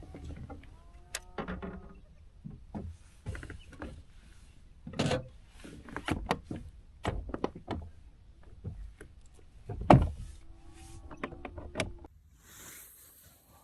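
Irregular knocks, clunks and clicks on a kayak, with one louder thump about ten seconds in and a brief whirring tone shortly after.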